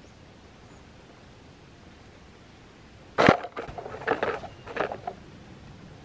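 A single sharp knock about three seconds in, followed by a quick series of shorter rustling knocks for about two seconds.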